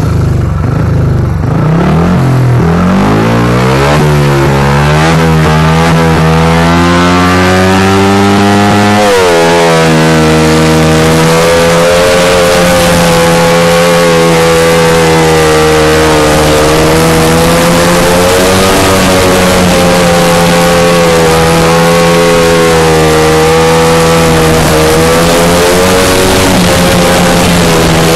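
Onboard sound of a speedway motorcycle's single-cylinder engine: the revs climb steadily for the first several seconds as the bike picks up speed, then stay high at full throttle with small rises and falls as it is ridden through the turns.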